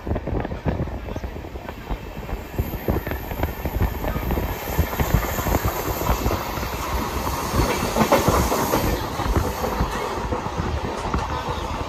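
Train running on the rails, heard from aboard: a steady rumble with rapid wheel clatter that gets louder about three seconds in.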